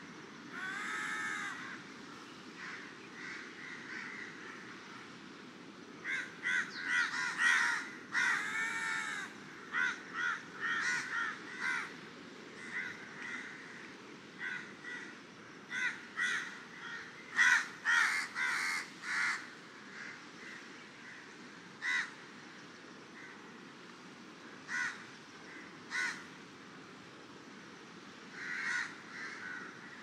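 Crows cawing: repeated short, harsh calls in clusters, sometimes several birds overlapping, over a steady low wash of surf.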